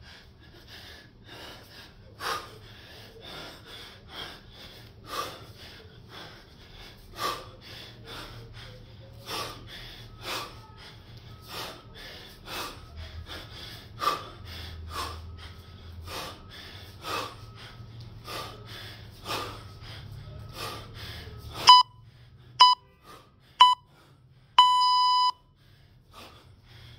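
Man breathing hard in sharp, rhythmic breaths about once a second, the effort breathing of a set of 24 kg kettlebell snatches. Near the end an electronic interval timer gives three short beeps about a second apart, then one longer beep.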